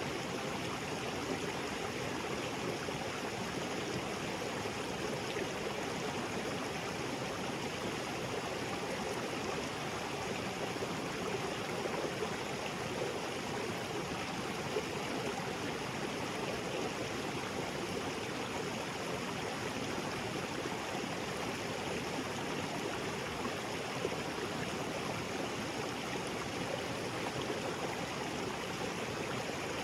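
Small waterfall spilling into a rocky creek: a steady rush of falling and flowing water, even and unchanging.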